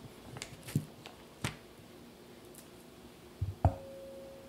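Kitchen knife slicing a block of cold butter on parchment paper: a few soft ticks and paper crinkles. About three and a half seconds in comes a sharper knock, followed by a short ringing note.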